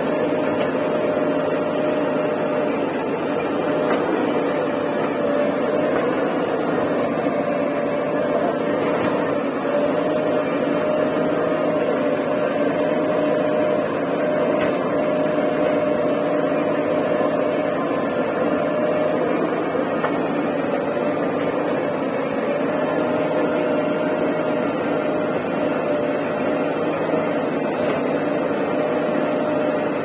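JCB 3DX backhoe loader's diesel engine running steadily under working load while the backhoe digs, with a steady tone above the engine noise.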